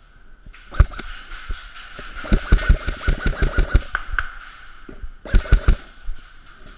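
Airsoft guns firing: single shots, then a quick string of about ten shots and a short burst of about four near the end.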